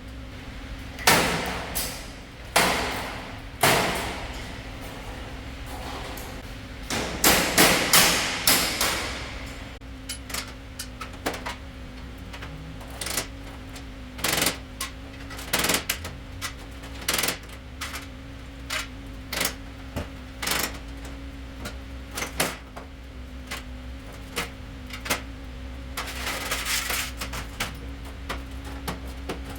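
Irregular sharp knocks and clanks, as of tools and metal parts being handled and struck, over a steady mechanical hum. There are a few loud knocks at the start, a dense clatter a quarter of the way in, then scattered single knocks and a short rushing noise near the end.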